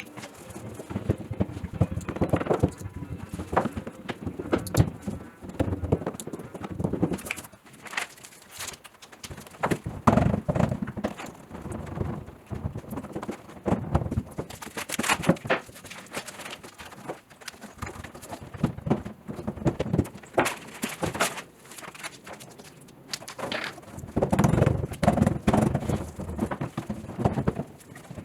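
Hand roller worked back and forth over butyl-and-foil sound-deadening sheets on a 1956 Chevy Bel Air's floor pan, pressing them down for full contact with the metal. It comes as irregular runs of rolling clatter and knocks, heaviest about ten seconds in and near the end.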